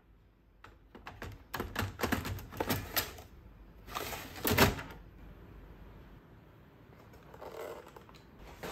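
Plastic clicks and rattles of an HP 507A toner cartridge being slid out of its slot in a colour laser printer, with the loudest clatter about four and a half seconds in as it is handled out of the printer.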